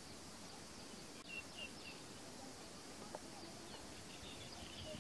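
Faint rural outdoor ambience with small birds chirping: a quick run of about four short high chirps a little after a second in, and a few fainter ones later.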